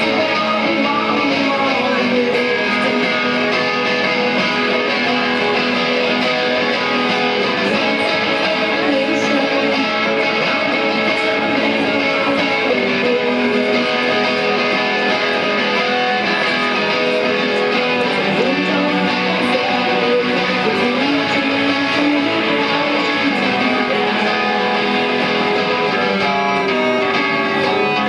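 Live band playing, with strummed guitars carrying the music.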